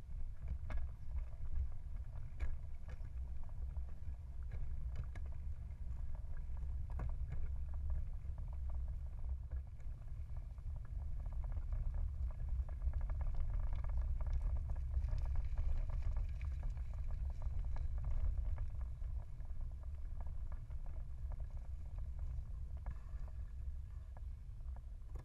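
Wind rumbling on the microphone and tyre noise from a moving semi-recumbent tandem bicycle, with scattered light clicks and rattles from the bike; it grows louder through the middle.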